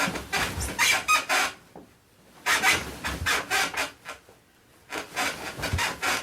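Spring mattress on a wooden bed frame creaking and squeaking as someone shifts on it, in three bouts with short pauses between.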